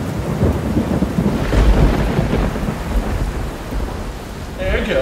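Thunder rumbling over steady rain, laid on as an intro sound effect; the rumble swells to its loudest about a second and a half in. A brief higher-pitched sound comes near the end.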